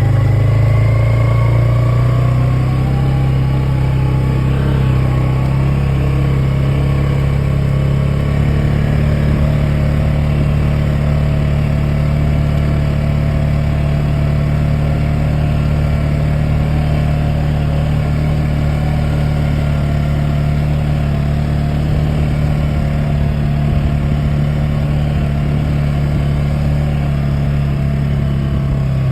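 A vehicle engine running steadily at an even speed, rising slightly in pitch in the first few seconds.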